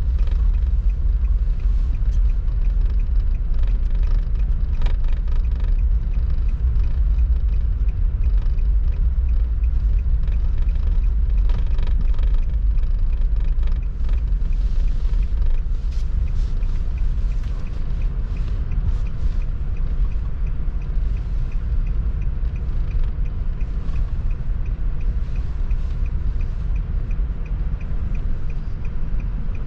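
Car driving through snow: a steady low rumble of engine and tyres, with scattered faint clicks and knocks.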